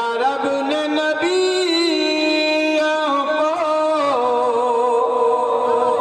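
A man's voice chanting devotional verse in a melodic, sustained style, amplified through microphones. He holds long notes, and the pitch slides and steps between them.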